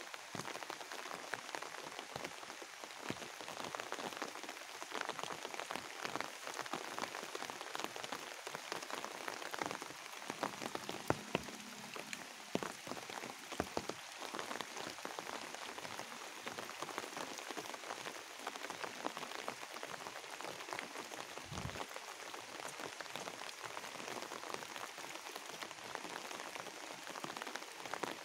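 Steady rain falling on leaves and grass, a dense hiss of countless tiny drop ticks. A few louder low thuds break in, around 11 and 22 seconds in.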